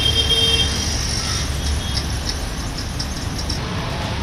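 Steady street noise with a low rumble of vehicle traffic, and a short steady tone in the first half-second.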